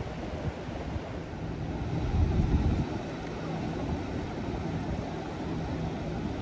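Wind rumbling on the microphone over small waves washing at the shoreline, rising briefly a couple of seconds in. A faint steady low hum runs through the middle.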